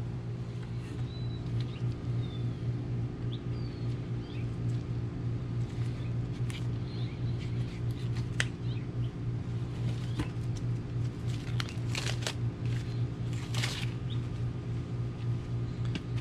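Steady low hum of an air-conditioner unit running, with faint bird chirps in the first half and a few clicks and rustles of handling in the second half.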